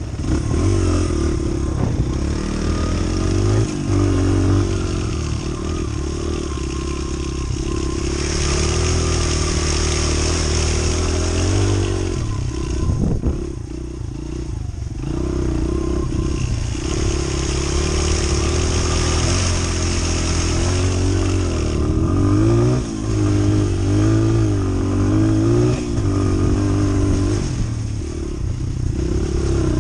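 Small four-stroke single-cylinder trail bike engine running while being ridden over rough grass, the revs rising and falling with the throttle and easing off briefly about halfway through. Wind rushes over the microphone during the faster stretches.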